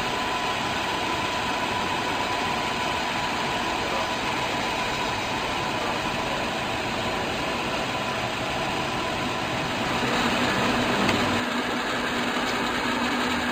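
Hardinge HLV toolroom lathe running under power with its spindle turning at speed: a steady mechanical whir with hiss. It gets slightly louder and a low hum comes in about ten seconds in.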